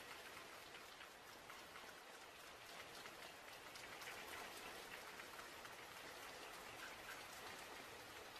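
Faint, steady rain: an even hiss of falling rain dotted with many small drop ticks.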